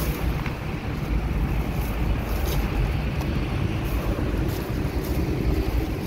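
Steady low rumble of outdoor background noise, with a few faint clicks.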